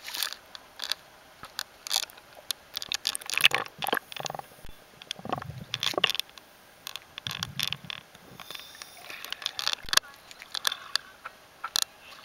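Lake water splashing and sloshing against a handheld waterproof camera as it dips under the surface and comes back up, in a string of short irregular splashes and knocks, with duller, muffled sounds midway while it is underwater.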